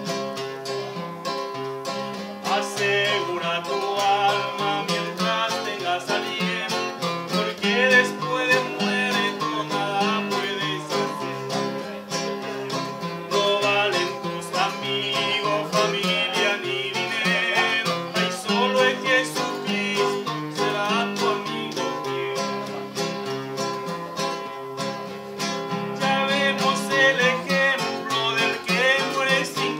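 Two acoustic guitars playing together, an instrumental passage of quickly plucked melody notes over chords.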